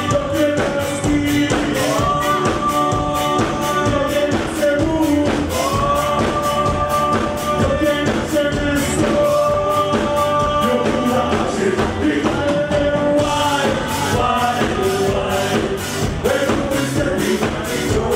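A song with a sung vocal over a steady beat. The singer holds long, level notes.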